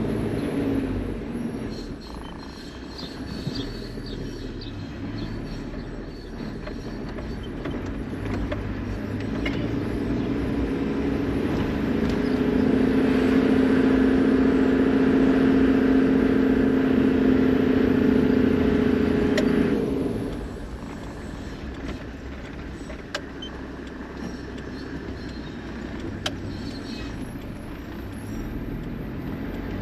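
Toyota Land Cruiser HZJ78 Troopy driving. From about twelve seconds in, a loud, steady, low-pitched squeal holds for some eight seconds, then cuts off suddenly; this is typical of the squealing brake that the driver finds unbearable, which the tags put down to a stone caught in the brake.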